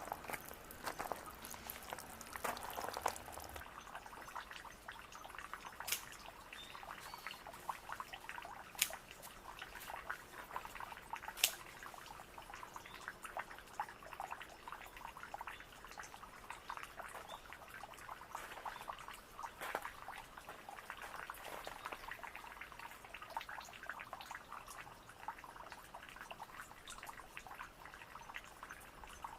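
Small garden waterfall trickling and splashing steadily, with a few sharp clicks in the first half.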